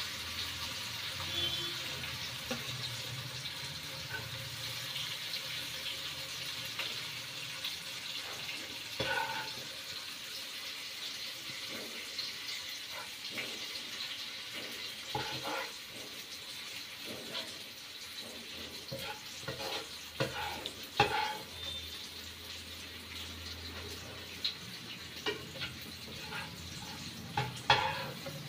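Oil sizzling faintly in a kadhai while a slotted steel spoon scoops out fried onion and tomato, with several sharp clinks and scrapes of the spoon against the pan and the steel plate.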